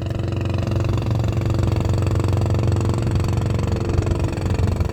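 A fishing boat's engine running at a steady pace, with a low, even engine note.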